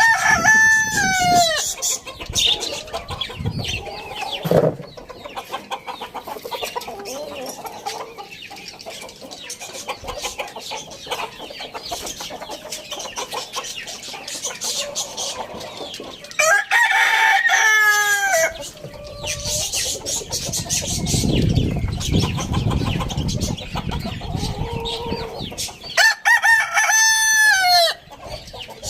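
Rooster crowing three times, each a drawn-out cock-a-doodle-doo that falls in pitch at the end: once at the start, again about 17 seconds in and again near the end. Chickens cluck quietly between the crows.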